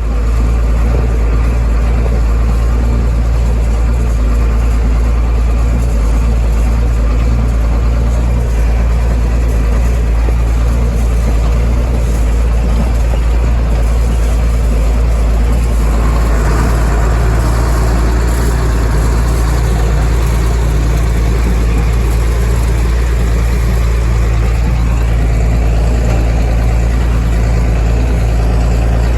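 Tractor's diesel engine running steadily, a loud deep drone that grows a little noisier about halfway through.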